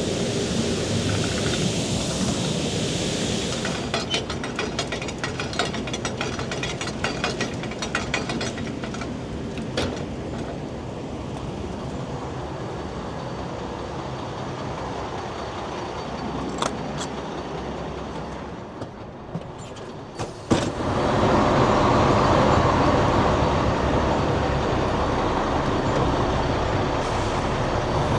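A farm vehicle running on the move, with clattering rattles through the first third. The sound grows suddenly louder and fuller about two-thirds of the way in.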